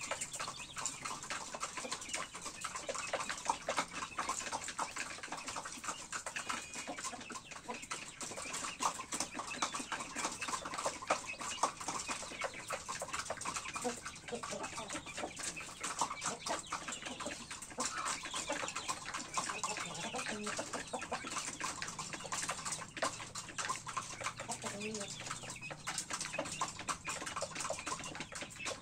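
Chickens clucking softly in a coop, over a steady dense patter of small clicks and scratches.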